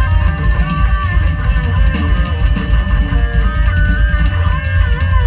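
Live Isan mor lam band music: an amplified plucked-string lead plays a sliding, wavering melody over a heavy bass and drum beat with steady cymbal ticks.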